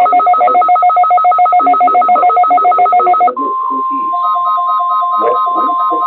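Electronic emergency alert tones. A beeping pulses rapidly, about eight times a second, in two pitches. About three seconds in it gives way to a steady single tone, the weather radio's 1050 Hz warning alert tone, and the pulsing beeps return beneath it a second later.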